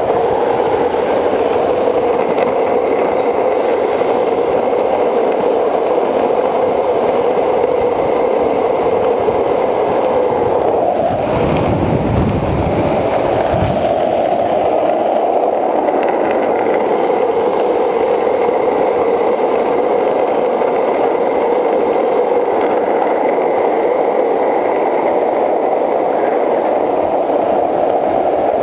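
Skateboard wheels rolling fast on asphalt, a steady rumbling roar, with a deeper, rougher rumble for a couple of seconds about twelve seconds in.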